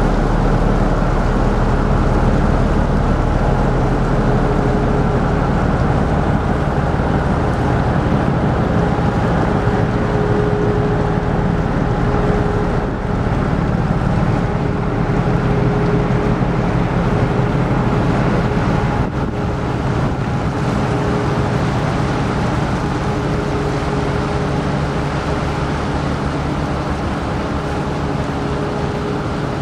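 Steady drone of an offshore service vessel's engines and onboard machinery running close by: a deep hum with a few held tones above it, dropping a little in level about two-thirds of the way through.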